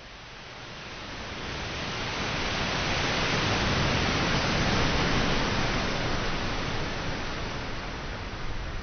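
Sea surf washing up a beach: a rushing noise that swells over the first few seconds and then slowly ebbs.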